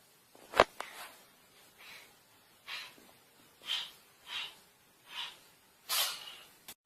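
Cat sneezing repeatedly: one sharp, loud sneeze about half a second in, then six softer, shorter sneezes spaced about a second apart.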